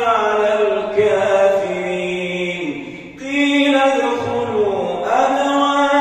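An imam chanting solo through the mosque microphone while leading the night prayer, in long melodic held phrases with ornamented turns of pitch. The voice breaks off for a breath about three seconds in, then takes up a new phrase.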